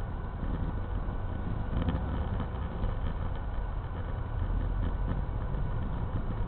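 Steady engine and road noise of a moving car heard from inside the cabin, a low rumble that holds even throughout.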